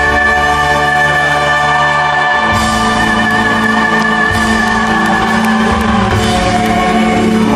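A female singer belts one long held high note over a live band, amplified through the arena sound system; the note ends about five seconds in and the band plays on.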